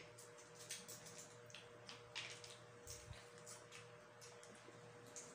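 Near silence: faint scattered clicks and small noises of chewing and handling food, over a steady faint hum.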